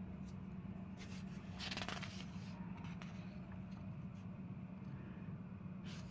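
Pages of a printed paper exam booklet being turned: a faint papery rustle, strongest one to two seconds in, over a low steady hum.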